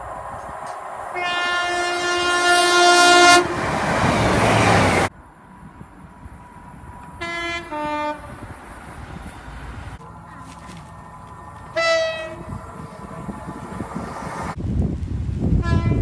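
Several British train horn blasts: a long steady horn chord about a second in, a quick high-then-low two-tone blast from an approaching High Speed Train power car around the middle, a short single note a few seconds later, and another brief blast near the end. A loud rush of passing-train noise follows the first horn and builds again near the end.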